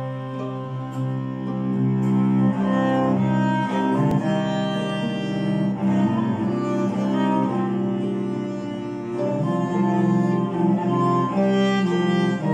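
Small string group playing a traditional Irish tune: fiddle and cello bowing long held notes, with the cello's low line strongest, over acoustic guitar.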